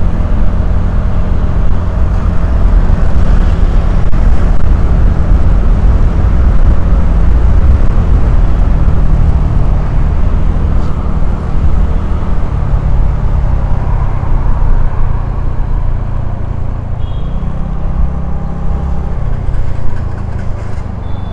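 Riding noise from a moving motor vehicle: a heavy low rumble of wind on the microphone over a running engine. It grows somewhat quieter over the last few seconds.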